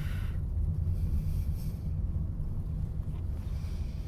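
Steady low rumble inside the cabin of a Toyota Mirai hydrogen fuel-cell car, with no engine note.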